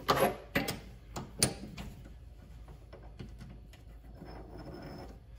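Several sharp metal clinks and knocks in the first second and a half, then quieter rattling and scraping as a chuck key is worked in the three-jaw chuck of a Vevor mini lathe to loosen the jaws.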